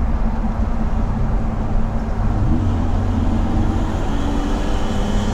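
Ford E350's 5.4 Triton V8 and road noise heard from inside the cab while driving, a steady low rumble.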